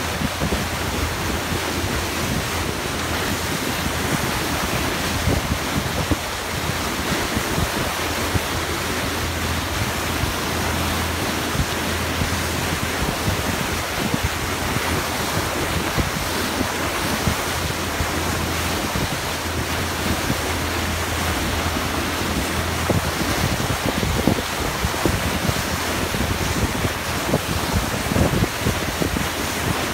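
A moving boat's bow wave: water rushing and churning against the hull, with wind buffeting the microphone and a low steady hum underneath.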